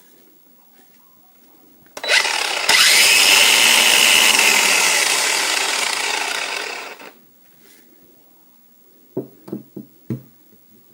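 Craftsman V20 20-volt cordless 4.5-inch angle grinder switched on and free-spinning with no load for about four seconds, then released and winding down. A few light handling knocks follow near the end.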